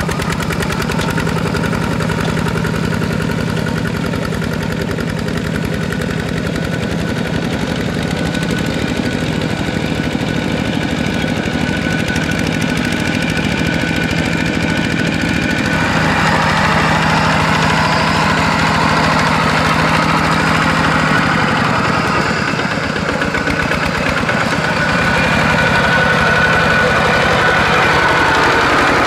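Kubota walk-behind two-wheel tractor's single-cylinder diesel engine running steadily under load as it pulls a disc plow through wet paddy soil. About halfway through it gets louder and harsher.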